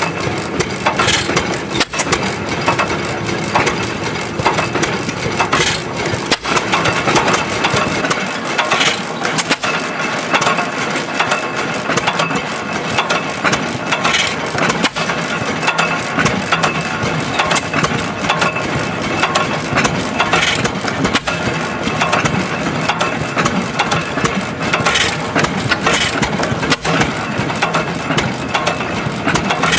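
Sears Economy 9 hp hit-and-miss engine running, with a steady clatter from its valve gear and igniter. Every few seconds, at uneven gaps, comes a sharp, loud firing stroke, as the governor lets it fire and then coast on its flywheels.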